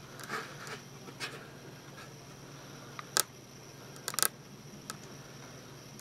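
Handling noise from a handheld inspection camera and its probe: a few sharp clicks and knocks, the loudest about three seconds in and again about four seconds in, over a faint steady hum.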